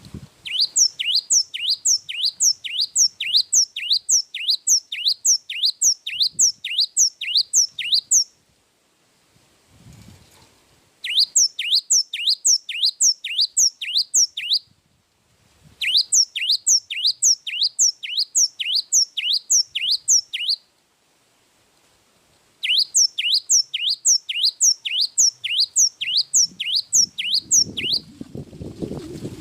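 Cinereous tit (gelatik wingko) singing its long song: a fast, even string of sharp two-part whistled notes, each falling in pitch, about two to three a second, delivered in four long bouts with brief pauses between. A lower sound comes in near the end.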